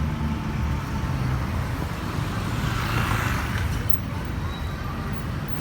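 Road traffic: a vehicle passes by, its noise swelling to a peak about three seconds in and fading, over a steady low rumble.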